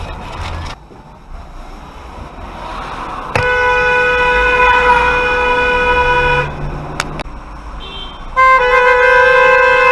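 Car horn sounding two long, loud blasts: the first about three seconds long starting a little over three seconds in, the second starting near the end.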